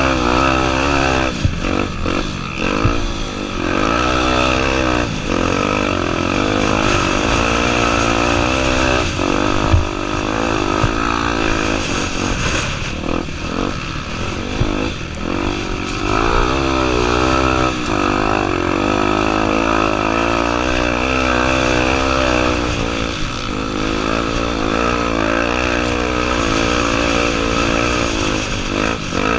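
Honda Tornado 250's single-cylinder four-stroke engine running as the motorcycle is ridden, its pitch rising and falling over and over with the throttle. A sharp knock is heard about ten seconds in.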